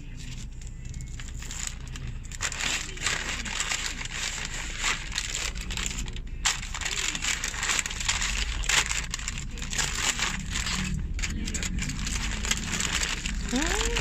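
Paper wrapper and aluminium foil crinkling and crackling as a wrapped pita sandwich is unwrapped by hand, over a low steady rumble.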